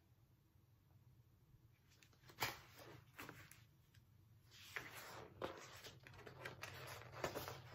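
Near silence, broken by a few faint rustles and light knocks of a hardcover picture book's pages being handled; the sharpest comes about two and a half seconds in.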